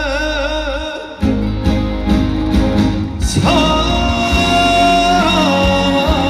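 Live Korean trot song: a male singer holds a long note with vibrato over the band. The note ends about a second in, the band plays through a few sharp drum hits, and a new long held note comes in about halfway.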